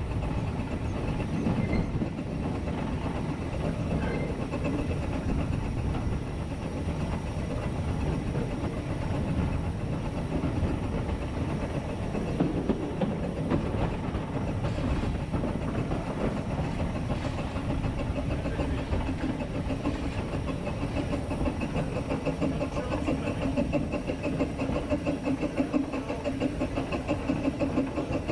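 Talyllyn Railway's narrow-gauge steam locomotive No.3 'Sir Haydn' under way, heard from the cab: a steady rumble and rattle of the engine and its wheels on the track. Near the end a regular quick pulse of the exhaust beat comes through more plainly.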